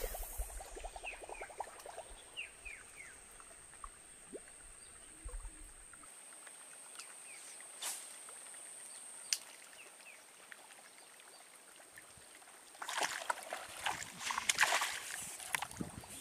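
Forest ambience: a steady high-pitched whine runs under scattered short falling chirps, which come mostly in the first few seconds. Near the end come about three seconds of louder, noisy scuffling and splashing-like bursts.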